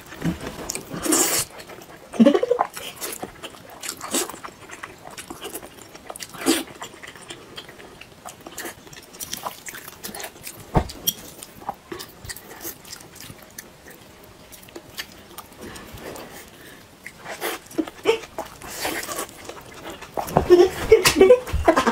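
Close-up eating sounds: wet chewing, sucking and lip smacking on a braised deboned pig's trotter, then mouthfuls of glass noodles, in scattered short bursts that grow busier near the end.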